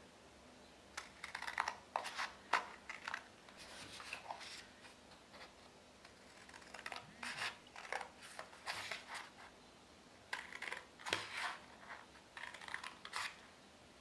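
Scissors snipping short straight cuts into a folded sheet of paper: a series of crisp snips in several runs, with short pauses between them.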